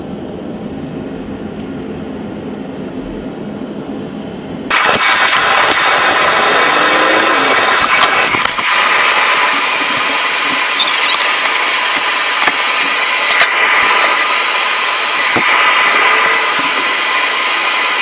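Steady machine noise, a low hum at first, then a sudden jump about five seconds in to a much louder, steady whooshing hiss, with a few light clicks and knocks of hand work under the hood.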